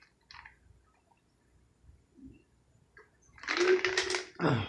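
Drinking from a water bottle: after a quiet stretch, a loud noisy slurp of water comes about three and a half seconds in and lasts about a second.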